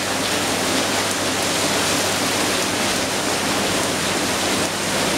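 Heavy monsoon rain pouring steadily onto tiled paving and plants.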